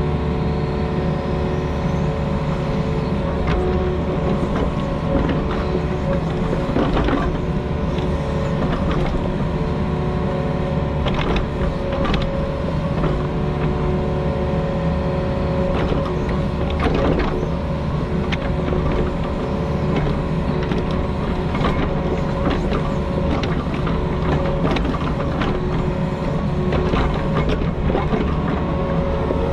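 Compact construction machine's diesel engine running steadily at working speed, with frequent short clanks and knocks of metal over it.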